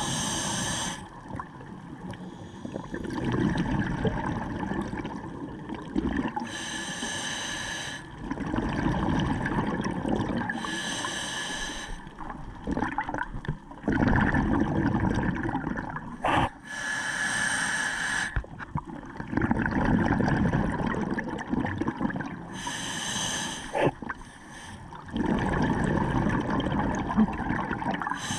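Scuba diver breathing through a regulator underwater: a short hissing inhale every five to six seconds, each followed by a few seconds of bubbling exhaled air.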